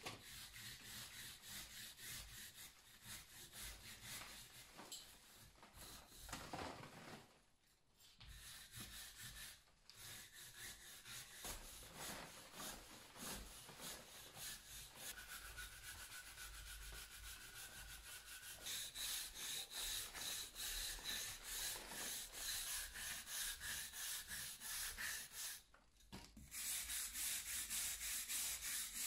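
Hand brush scrubbing soot-blackened fireplace brick in quick back-and-forth strokes, with a few short pauses.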